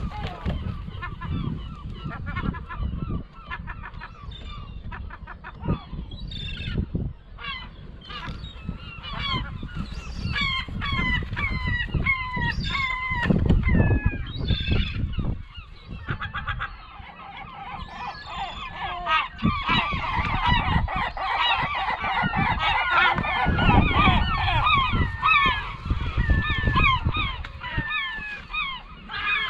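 A flock of gulls squabbling over food, calling over and over in short falling cries that thicken into a dense, overlapping chorus about halfway through. Gusts of low rumble run underneath.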